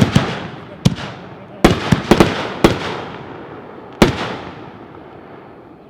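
Shells from a Shockwave 'Kamehameha Wave Super Saiyan Shells' consumer fireworks cake going off: a quick string of about eight to ten loud bangs, several in close succession, each trailing off in an echoing rumble. The last bang comes about four seconds in, and the sound dies away after it.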